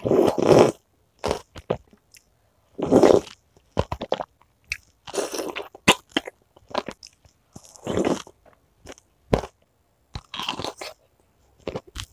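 Close-miked eating: irregular bites and chewing with crunching, from a person eating meatballs made with crunchy chicken cartilage.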